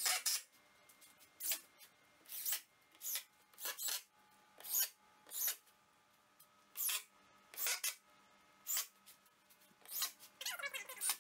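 About a dozen short scraping or rubbing strokes at uneven intervals, the last few near the end coming close together with a squeaky edge.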